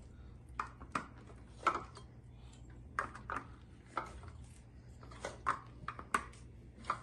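Light clicks and knocks of plastic connectors and tubes, about a dozen at irregular intervals, as the legs are pushed onto the connectors of a portable fabric closet's tube frame.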